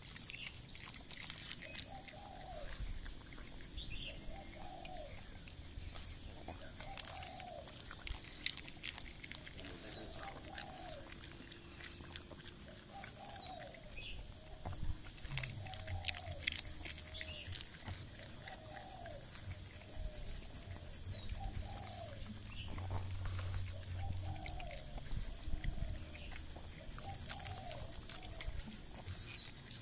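Outdoor ambience: a bird repeats a short, low, rising-and-falling call about every second and a half over a steady high-pitched insect whine, with a few faint chirps. Faint scattered clicks of a pug chewing rice paper salad.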